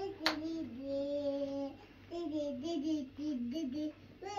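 A young child singing a wordless tune, holding and wavering its notes in two short phrases with brief pauses between them.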